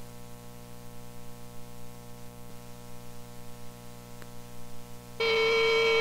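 Gap between songs on a cassette demo tape: a low steady hum with hiss and a couple of faint clicks. About five seconds in, a loud sustained electric guitar chord starts ringing, opening the next song.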